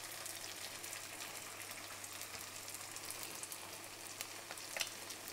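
Cornflour-coated garfish fillets frying in hot oil in a stainless steel pan, a steady fine sizzle and crackle, with a couple of light clicks near the end.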